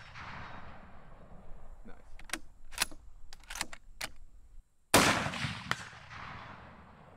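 Mosin Nagant M44 carbine: the echo of one shot dying away, several sharp metallic clicks as the bolt is worked, then a single 7.62×54R rifle shot about five seconds in, its report trailing off for a couple of seconds.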